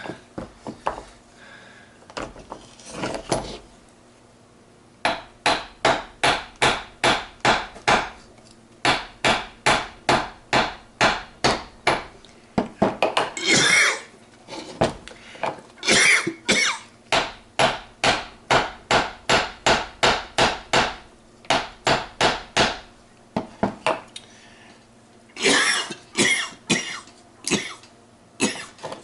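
Hammer tapping on steel gearbox parts. A few scattered knocks, then from about five seconds in a long run of regular sharp taps, two to three a second, with short pauses.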